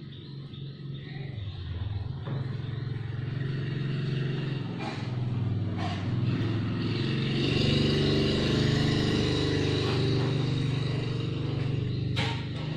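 A motor vehicle's engine running, growing louder through the middle and easing off near the end, with a few short clicks.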